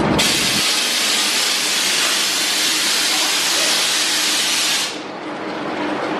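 Roller coaster station's pneumatic system venting compressed air: a loud, even hiss lasting nearly five seconds that cuts off suddenly. A low rumble dies away in the first half second.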